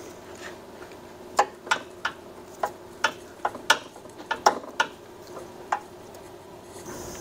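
Hose-clamp pliers and a spring hose clamp on a transmission cooler line clicking and clacking as the clamp is squeezed and slid back along the hose: about a dozen sharp, irregular metal clicks, starting about a second and a half in.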